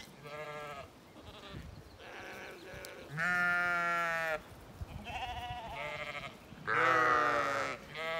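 Zwartbles ewes and lambs bleating: about six calls one after another, some lower and some higher-pitched. The loudest two, each over a second long, come about three and seven seconds in.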